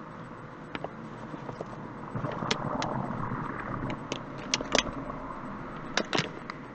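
Scattered sharp clicks and knocks over a steady hiss. The loudest come in a cluster past the middle and a pair near the end.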